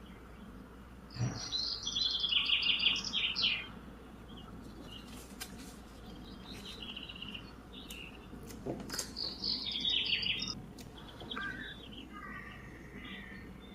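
Small birds chirping in two bursts of rapid, high twittering, with softer chirps near the end and a few faint clicks.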